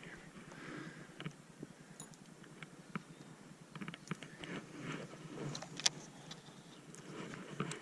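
Scattered light clicks and small rattles of fishing gear being handled on a kayak, with a quick run of clicks about four seconds in and one sharper click near six seconds.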